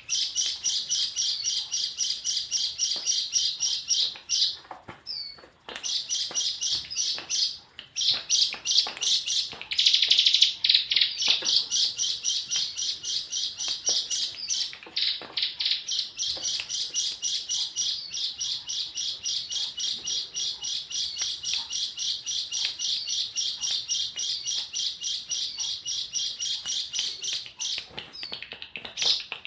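A tame pet bird chirping in a long, rapid run of high notes, about four or five a second, broken by short pauses and a denser burst about ten seconds in.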